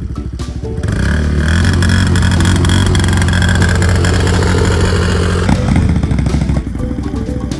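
Large sport ATV engine running. About a second in it rises to a loud, steady drone as the quad pulls away, and the note changes and eases a little after about five and a half seconds.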